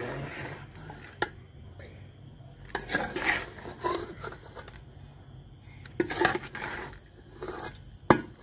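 A long metal spoon stirring and scraping cooked biryani rice against the sides and bottom of an aluminium cooking pot, in uneven strokes, with a couple of sharp metal clinks, one about a second in and one near the end.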